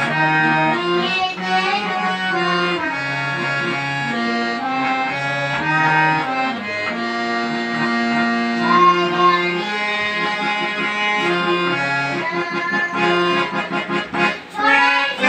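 Harmonium being played: a slow melody of held reedy notes over sustained lower notes, changing every second or so.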